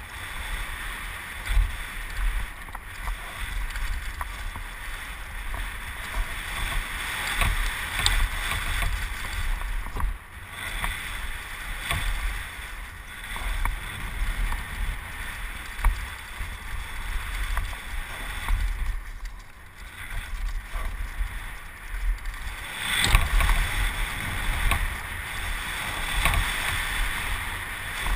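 Mountain bike descending a dry dirt trail at speed: wind buffeting the helmet-mounted camera, tyres rolling and skidding on loose dirt, and frequent clicks and rattles from the bike over bumps, getting louder near the end.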